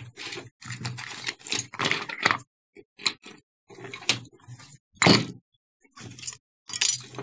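Small beach finds, hard plastic sand-mold toys and bits of metal, being set down on a glass tabletop: a string of knocks and taps, the loudest about five seconds in.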